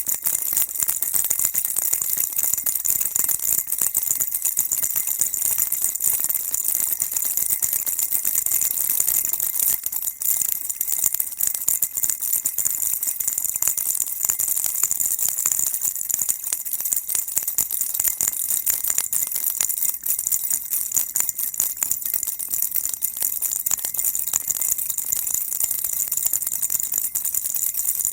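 Baby rattle shaken continuously: a dense, steady, high-pitched rattling with no pauses.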